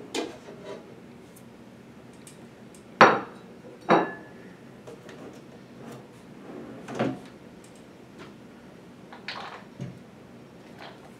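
Objects being handled and set down on a hard tabletop: five or so separate sharp knocks and clinks a second or more apart. The loudest two come about three and four seconds in, and the second of these leaves a brief metallic ring.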